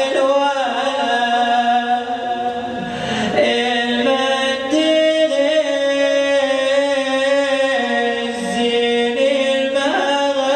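A man chanting an Arabic Shia lament (nai) into a microphone, in long held notes that slide between pitches.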